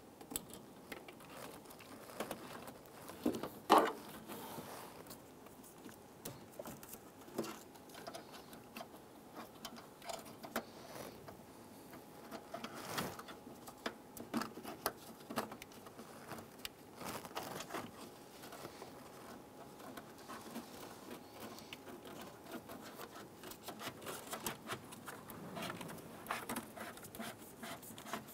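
Faint rustling, scraping and light taps of a hood release cable being fed by gloved hands through a Ford Explorer's engine compartment, with one louder knock about four seconds in.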